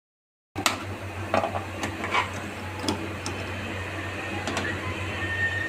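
IFB microwave oven humming steadily, with scattered clicks and knocks from handling. A thin high tone comes in near the end.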